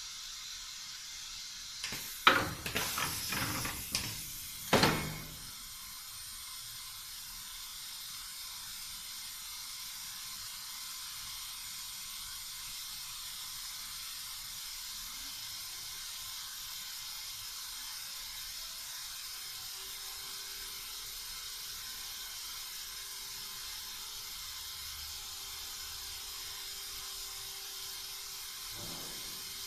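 Urban AKS 1200 double welding machine working: a cluster of sharp mechanical clacks and clatter about two to five seconds in, the last the loudest, over a steady hiss. A faint thin steady tone comes in past the middle.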